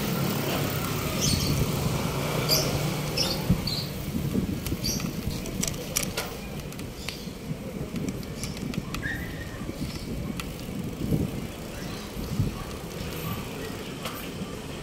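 Street traffic rumbling steadily, with a few short high chirps in the first five seconds and several sharp clicks about six seconds in.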